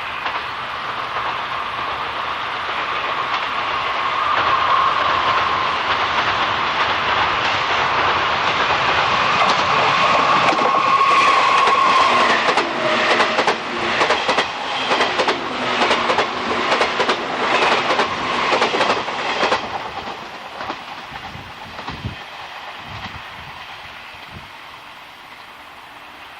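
A train approaching and passing on jointed track. A rising rumble with a high steady whine gives way, about halfway in, to a rapid run of wheel clacks over rail joints. The clacks stop near three-quarters of the way through and the sound fades as the train recedes.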